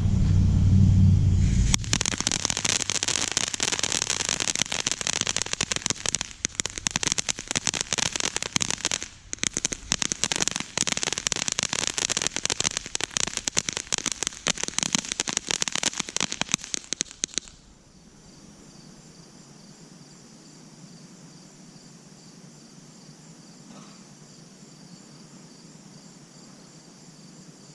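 Consumer firework fountain crackling densely for about sixteen seconds, then cutting off sharply. Crickets chirp steadily underneath and carry on alone afterwards.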